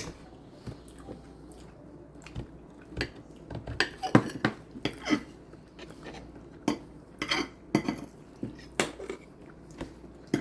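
Cutlery clinking and scraping on plates and dishes during a meal, in many short, irregular clicks.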